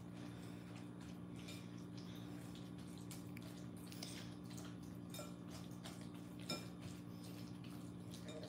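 Faint scraping and light clicks of a spatula stirring grated potatoes and raw egg in a glass bowl, with one slightly louder click about six and a half seconds in, over a steady low hum.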